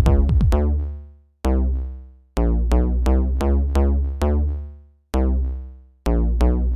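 Electronic instrumental music: runs of short plucked synth notes over a deep bass, in phrases that die away into brief silences several times before starting again.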